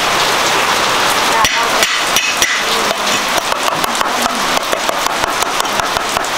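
A rapid run of sharp knocks, several a second, starting about a second and a half in, over a steady hiss.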